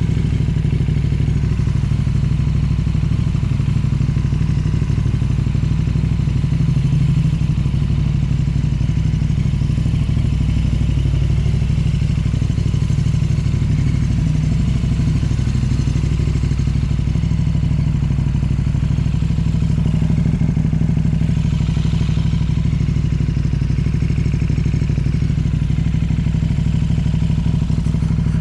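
An engine running steadily at an even speed for the whole stretch, with no revving, idling or stopping.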